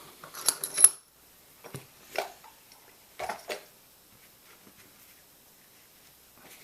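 Metal clicks and knocks from handling a small pin-tumbler lock and picking tools: a quick run of sharp clinks in the first second, then a few separate knocks over the next few seconds.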